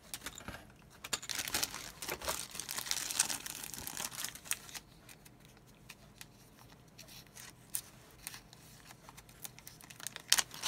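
Clear resealable plastic bag crinkling as it is pulled open by hand, with rustling plastic packaging and small clicks of parts being handled. The rustling is busiest in the first few seconds, then quieter.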